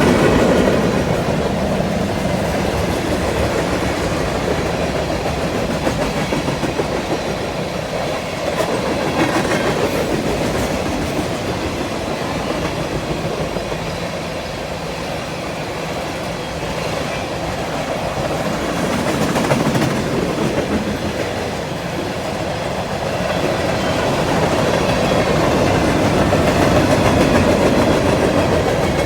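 Freight train cars rolling steadily past, a continuous rumble with the clack of wheels over the rail joints, swelling and easing as the cars go by.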